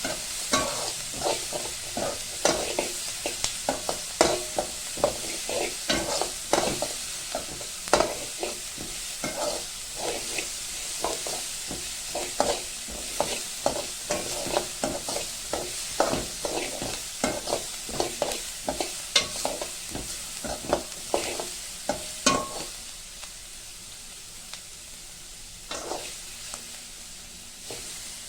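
A utensil stirring and knocking against a pan, with frequent sharp taps and scrapes over a steady frying sizzle. The knocking thins out about three-quarters of the way through, leaving mostly the sizzle with a couple of taps.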